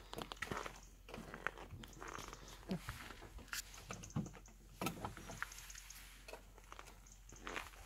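Faint scattered clicks and small knocks of shotgun shells and a box magazine being handled, with light rustling between them.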